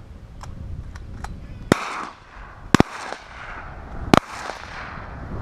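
A volley of shotgun shots at ducks: three loud blasts roughly a second apart, the second and third each two nearly simultaneous shots from different guns, with fainter distant shots before them and wind rumbling on the microphone.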